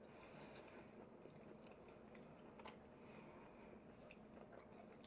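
Near silence with faint chewing and a few small scattered clicks of eating crab.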